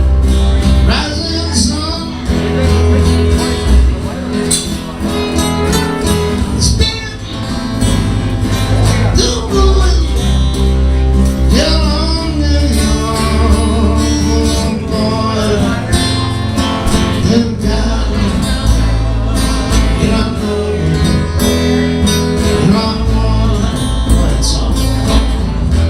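Acoustic guitar music played live, with guitars strumming and picking chords that change as the song goes.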